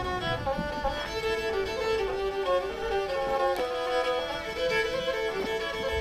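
Black Sea kemençe, a small bowed fiddle, playing a quick melody of short notes as background music.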